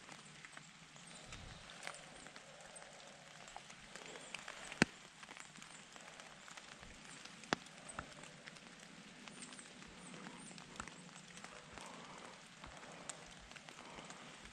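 Quiet woodland ambience: a faint steady hiss with scattered sharp ticks, two louder ticks about five and seven and a half seconds in.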